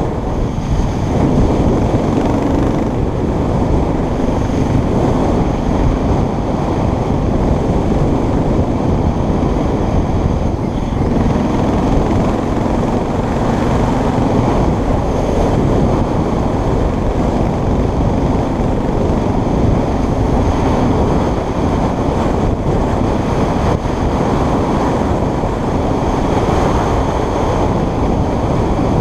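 Wind rushing over the microphone of a motorbike moving at road speed on a dirt road, with the bike's engine running as a steady drone underneath.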